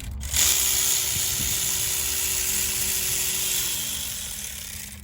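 Cordless power tool spinning a long bolt out, its motor whining at a steady pitch for about three seconds, then dropping in pitch and winding down near the end.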